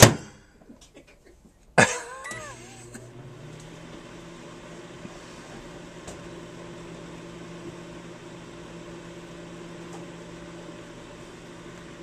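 Microwave oven door clicking shut, then a sharp sound about two seconds in as the oven starts, followed by the oven's steady running hum.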